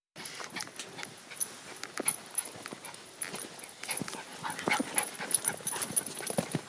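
A small dog whimpering and yipping in short bursts, over scattered footfalls on a muddy trail.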